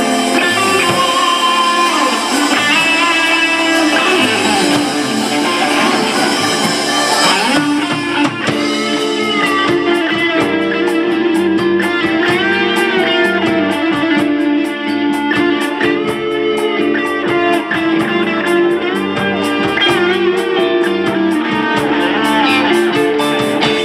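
Live rock band playing an instrumental passage: an electric lead guitar solo with bent notes over drums and bass guitar, the music stopping near the end.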